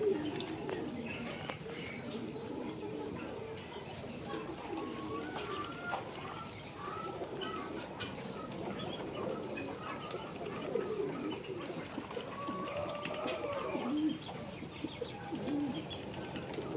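A flock of Muscovy and other domestic ducks making soft, low murmuring calls, over a steady series of short high chirps repeating about twice a second.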